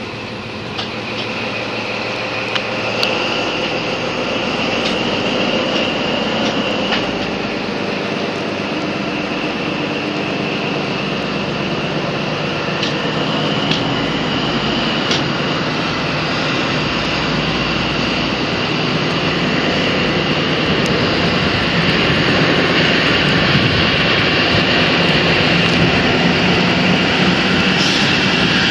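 InterCity 125 (HST) diesel train accelerating away, heard from an open coach window: power car engine noise with a steady high whine, wind rush and a few sharp clicks of wheels over rail joints, growing gradually louder as it picks up speed.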